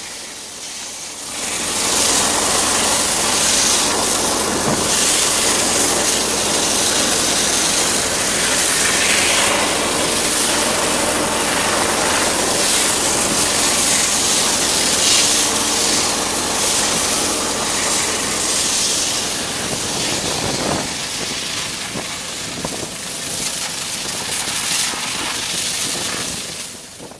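High-pressure water jet from a Panther Model H1 hydro excavation head blasting soil away from a buried pipe: a loud, steady hiss with a low machine hum beneath it. It starts about a second and a half in, eases a little in the last few seconds and stops just before the end.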